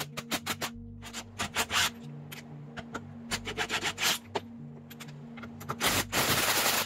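Lug nuts being worked off an alloy wheel: a run of sharp metallic clicks and scrapes, then a loud rasping burst lasting about a second near the end, over background music.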